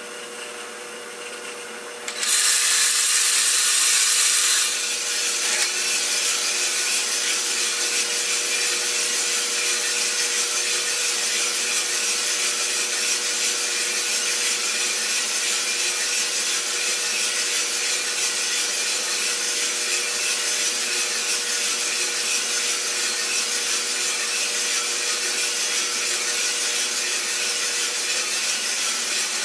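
Iroster600 coffee roaster running during a roast, a steady rushing noise with a constant hum. About two seconds in it gets suddenly louder, with a bright hiss that eases back a couple of seconds later to a steady run.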